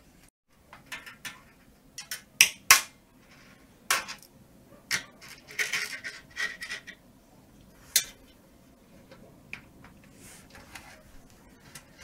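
Scattered sharp metallic clicks, clinks and knocks as a hard drive is unscrewed and shifted in a PC case's steel drive cage with a screwdriver, busiest in the first eight seconds and fainter after.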